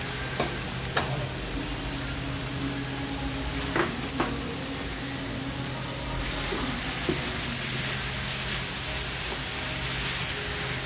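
Spicy sauced chicken and vegetables sizzling on a large round griddle pan as two wooden spatulas stir and toss them, with a few sharp clacks of the spatulas against the pan in the first few seconds. The sizzle grows louder and brighter about six seconds in.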